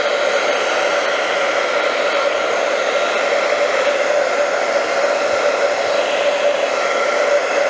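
Handheld blow dryer running steadily, its motor and fan giving a constant whine over the rushing air, used to heat the adhesive on a sole protector sticker until it turns tacky.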